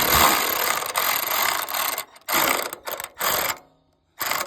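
Ratchet wrench clicking as it snugs down the turn signal's mounting bolts: a long run of fast clicks for about two seconds, then a few short bursts of clicks, a brief pause near the end, then another burst.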